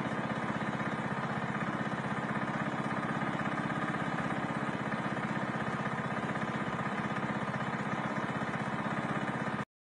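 A steady, rapidly pulsing drone with an even texture, cutting off abruptly near the end.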